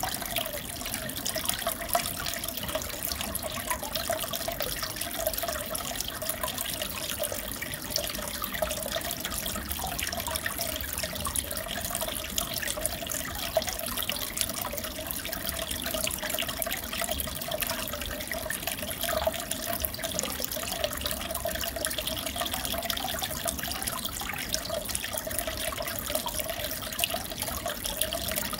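Aquarium water trickling and bubbling steadily, with many small pops and splashes.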